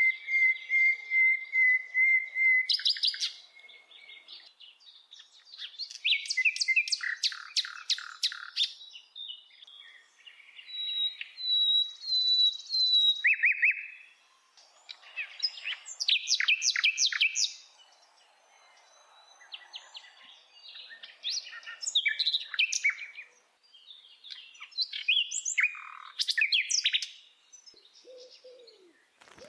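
A bird singing in varied phrases: a rapid run of repeated high notes, then bursts of fast trills and short whistled glides, each lasting a few seconds with brief pauses between.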